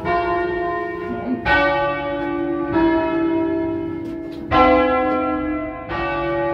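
A peal of five church bells cast by the Barigozzi brothers of Milan in 1940 and tuned in C, rung by hand with ropes, heard from inside the bell tower. There are five strikes about a second and a half apart, each ringing on and overlapping the next.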